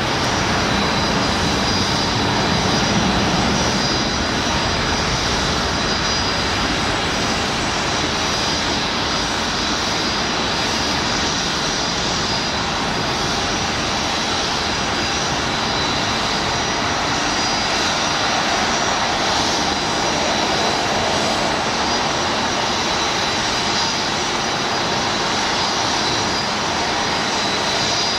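Boeing 737-700's twin CFM56-7 turbofan engines running steadily, a broad roar with a thin high whine above it.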